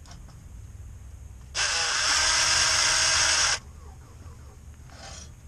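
Power drill driving a socket runs in one steady burst of about two seconds, starting about a second and a half in and stopping abruptly, spinning out an already-loosened bolt.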